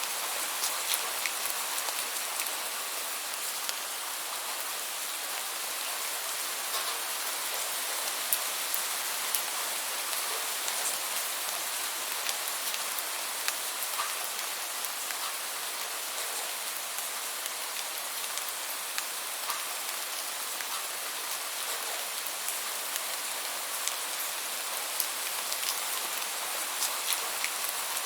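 Steady rainfall, an even hiss with many small, sharp drop ticks scattered through it.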